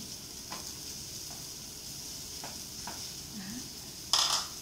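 A pot of tomato broth boiling on a portable gas stove, a steady hiss, with a few light taps of chopsticks in the pot and a brief loud burst of noise near the end.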